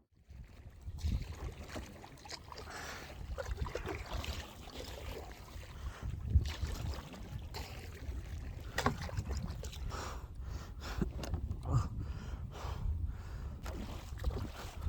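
Wind buffeting the microphone in uneven gusts, mixed with splashing and dripping water from kayak paddle strokes.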